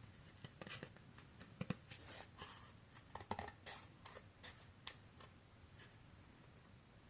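Faint, irregular snips of scissors cutting card, most of them in the first five seconds.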